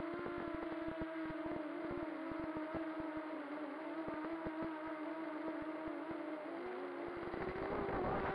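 FPV quadcopter's electric motors and propellers whining steadily, heard from the onboard camera, with frequent crackles. The pitch wavers with the throttle and climbs and shifts near the end as the drone dives.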